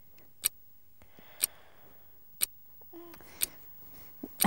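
Bedside alarm clock ticking, sharp single ticks about one a second. This is the strange tick-tock that keeps the listener awake at night.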